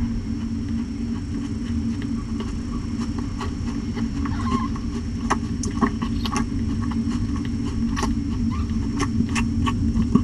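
Mother cat purring with a steady low rumble while her newborn kittens nurse. From about five seconds in, scattered small wet clicks come from her licking the kittens and from their suckling.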